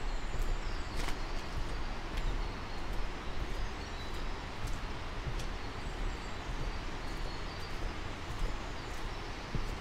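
Outdoor ambience on a walk along a road: a steady rush with low wind rumble, the occasional crunch or click of footsteps, and faint, scattered high bird chirps.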